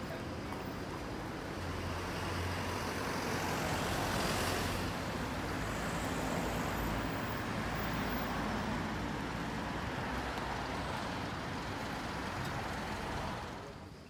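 City street traffic: a steady hum of road noise from passing cars. It swells a couple of seconds in and falls away near the end.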